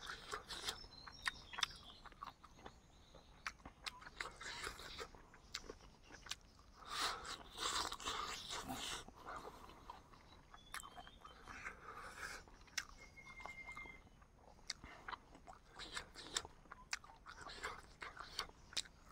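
A person biting and chewing cooked chicken close to the microphone: irregular crunching and wet smacking clicks, with a louder stretch of chewing about seven to nine seconds in.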